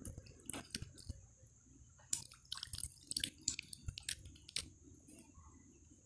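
A person chewing food close to the microphone: a run of irregular clicks, thickest between about two and five seconds in.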